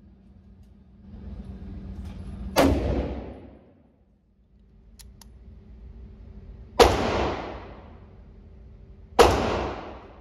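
Three loud gunshots in an indoor shooting range, each with a long echoing tail, the last two about two and a half seconds apart.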